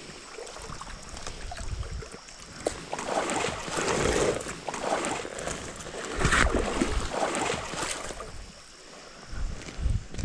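Creek water sloshing and splashing around a wader's legs as he wades upstream, coming in uneven surges.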